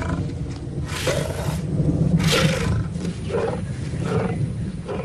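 Lion roaring: a run of about five deep roars, the later ones coming closer together.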